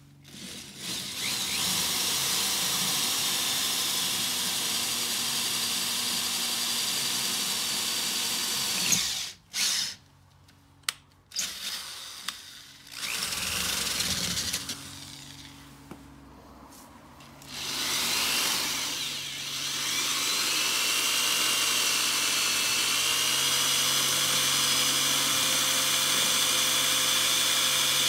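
Cordless drill with a masonry bit boring into brick. The motor runs steadily for about eight seconds, stops, gives a few short bursts, then picks up again and runs steadily through the second half, its pitch sagging briefly as the bit bites.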